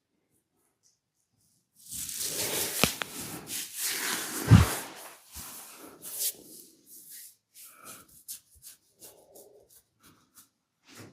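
Hands rubbing briskly over skin and hair during a massage, with a sharp click and then a heavy thump in the middle; after that, lighter scattered rubs and taps.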